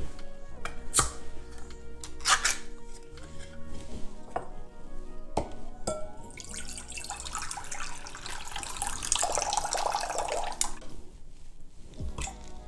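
A pull-tab can lid opened with a few sharp metal clicks, then canned lychee syrup pouring from the can into a ceramic bowl for about four seconds, starting about six seconds in.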